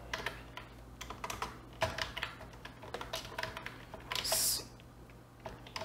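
Typing on a computer keyboard: irregular, quick keystroke clicks, with a short hiss a little past the middle.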